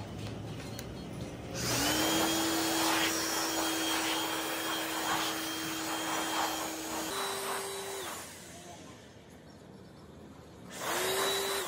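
Handheld electric power tool running: its motor whirs up to speed, runs steadily for about six seconds with a slight rise in pitch shortly before it is switched off, then is started again briefly near the end.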